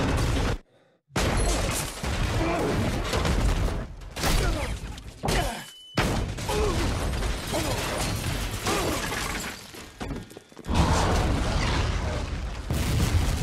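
Film sound effects of an offshore drilling rig exploding: dense blasts, shattering and crashing debris over a low rumble. The din cuts to near silence twice, briefly about a second in and again around six seconds in, with a short high steady ringing tone just before the second cut. A loud low surge of rumble hits at about eleven seconds.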